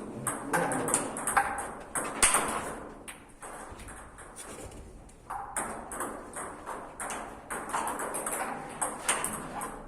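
Table tennis ball in play, clicking sharply against the rackets and the table in a quick, irregular series, with a short lull partway through.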